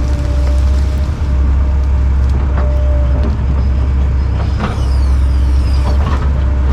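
Heavy diesel land-clearing machinery running steadily under load, a deep rumble with a steady mid-pitched tone, broken by scattered sharp cracks and snaps.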